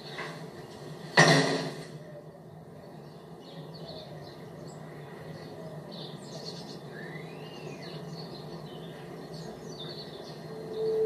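Quiet ambience from a TV drama's soundtrack, picked up off the set's speaker: a steady low hum with faint bird chirps. A short loud noise comes about a second in, and a held bell-like music tone begins near the end.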